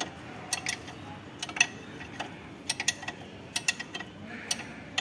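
Hand wrench working a bolt on a Tata Indica's front wheel hub: a string of sharp metallic clicks, irregular and often in quick pairs, as the bolt is tightened.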